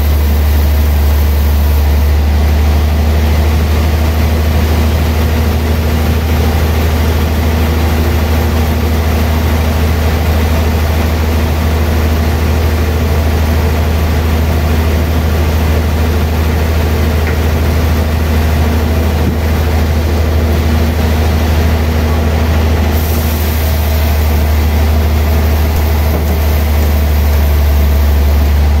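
Large sawmill band saw running with a steady, loud low hum, its blade sawing a thick slab off a big log.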